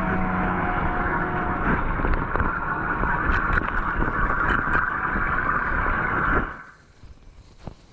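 Floodwater rushing and gurgling down a street drain as it is unblocked: a loud steady rush with crackles that cuts off suddenly about six and a half seconds in.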